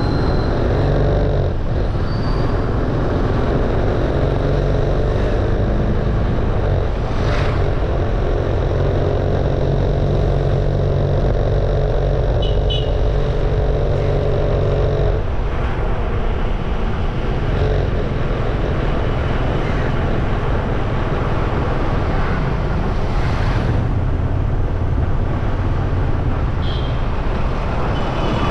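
Motorcycle engine running at a steady cruise, with road noise and the surrounding street traffic; about halfway through the engine note drops and changes.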